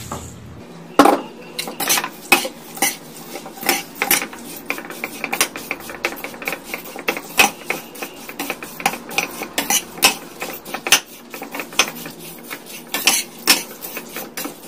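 Steel spatula scraping and knocking against a stainless steel kadai while tossing dry roasted poha flakes with the tempering: irregular clinks and scrapes, several a second, starting about a second in.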